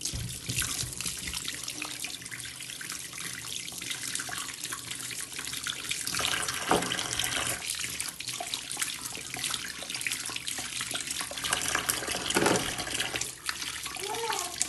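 Water running from a tap into a sink, a steady rushing hiss with small knocks and clatters over it.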